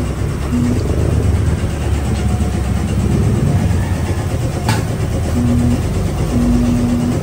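Nissan Patrol with its replacement ZD32 engine running, a steady deep engine and road rumble, with a few short tones at one pitch in the middle and near the end.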